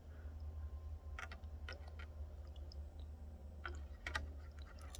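Faint, scattered clicks and light taps of small hand tools and parts being handled during a phone repair, over a steady low hum.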